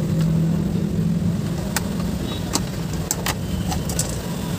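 A series of short sharp clicks and taps as a plastic Asahi wall clock and its replacement quartz movement are handled and fitted, about half a dozen of them in the second half, over a steady low drone.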